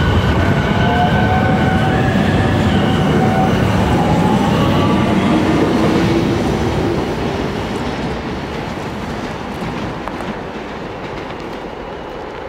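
MBTA Green Line light-rail train passing close and pulling away, with wheels rumbling on the rails and its traction inverters whining in tones that step up in pitch as it gathers speed. About six seconds in, the sound starts fading steadily as the train draws off into the distance.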